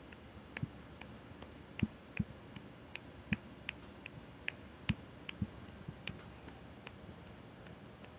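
A hand patting a cat's rump: quick, soft pats, about two or three a second, some landing harder than others.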